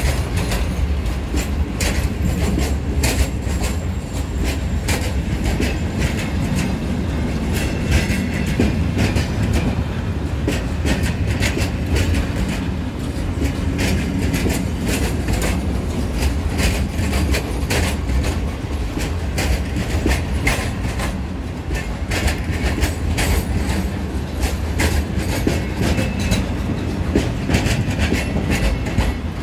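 A freight train of open coal wagons rolls past, its wheels clicking and clattering over the rail joints over a steady low rumble.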